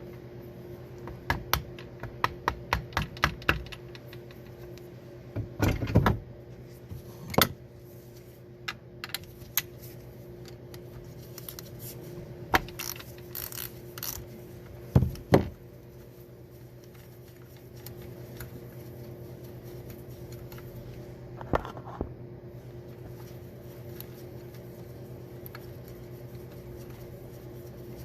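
Metal parts of a 1990s Honda manual transmission's gear selector clicking and clinking as they are handled and fitted together. A quick run of about eight clicks comes in the first few seconds, then single clinks at intervals, over a steady background hum.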